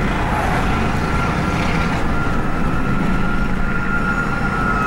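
Emergency vehicle siren holding one steady wail that slowly sags in pitch, over the low rumble of engine and road noise from a vehicle in traffic.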